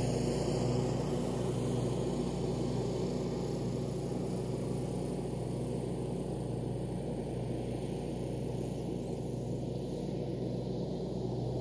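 Lawn mower engine running steadily, a little louder for the first second or so and then holding level.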